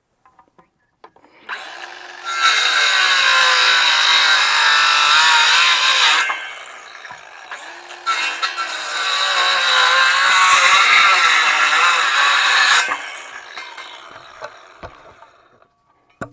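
Chainsaw cutting a wooden fence-brace cross piece in two cuts of about five seconds each. Its engine pitch dips under load in the wood and rises again, and it runs quieter between the cuts.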